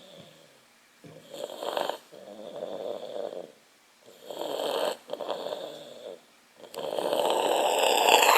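Brown tabby cat breathing noisily, a rasping snore-like sound on each breath in and out, about three breaths. It is an unusual noise from the cat that the owner guessed came with the change of season.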